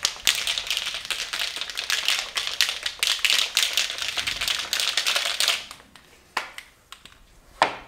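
Aerosol spray paint can being shaken, its mixing ball rattling rapidly, then stopping about five and a half seconds in. A couple of single knocks follow near the end.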